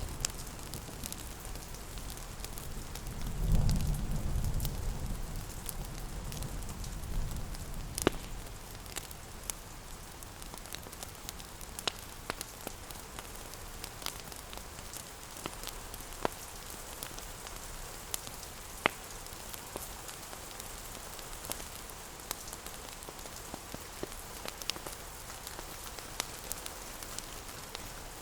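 Steady rain with fireplace crackle: scattered sharp pops over an even hiss. A low rumble of thunder swells about three seconds in and dies away over the next few seconds.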